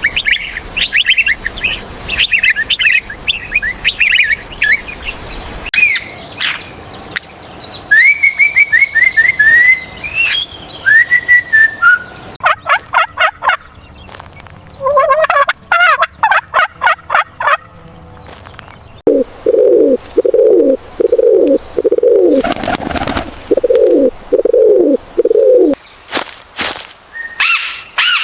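A run of different bird calls edited one after another. High chirping comes first, then falling whistled notes, then fast repeated calls, and in the second half a series of lower repeated calls.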